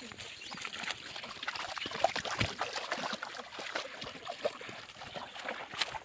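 Shallow stream water trickling, with scattered small splashes and ticks.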